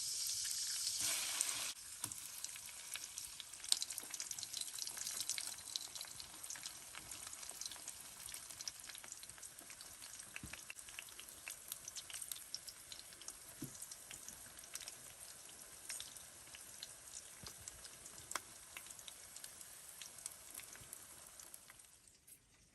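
Rain falling: a dense patter of many small drop ticks over a steady hiss, louder for the first two seconds, then softer, and fading out near the end.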